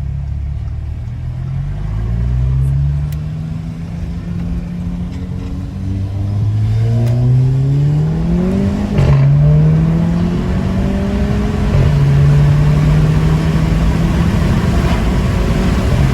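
Audi's engine under a light acceleration pull, running bolt-on modifications on the stock tune: the revs climb twice, drop sharply at a gear change about nine seconds in, then hold fairly steady.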